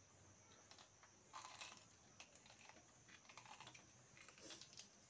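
Faint, irregular wet clicks and smacks of eating by hand: meat being bitten off the bone and chewed, with rice picked from a metal plate. A faint steady high-pitched whine runs underneath.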